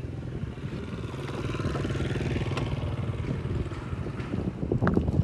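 A motor vehicle's engine running with a fast, even pulse, growing louder over the first two seconds, with a few sharp knocks near the end.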